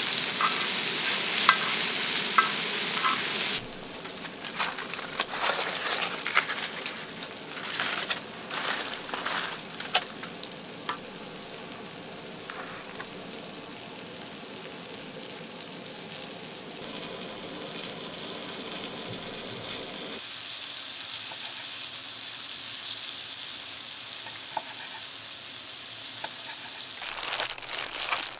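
Food sizzling in a hot pan, with utensils clicking and knocking as it is stirred. The sizzle is loud for the first few seconds, then quieter.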